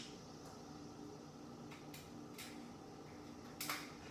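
Ice cubes being worked loose from a plastic ice cube tray: a few faint scattered clicks and cracks, then a louder cluster of cracks near the end.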